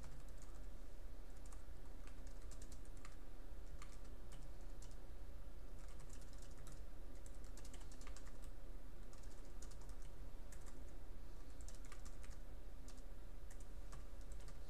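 Typing on a computer keyboard: a run of irregular keystroke clicks over a low steady hum.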